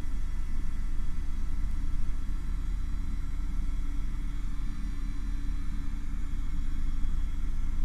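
Airbus H125 (AS350) helicopter in flight, heard from inside the cockpit: a steady low rotor and engine rumble with a faint steady whine above it, the helicopter working under a heavy sling load.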